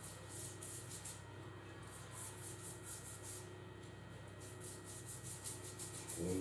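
Pastry brush swept over thin yufka dough sheets, wetting them with water: soft brushing strokes, a few a second, in short runs.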